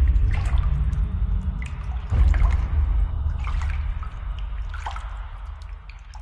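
Bathwater splashing and dripping as hands move through a filled bathtub, with scattered sharp splashes over a deep low rumble that swells about two seconds in and fades toward the end.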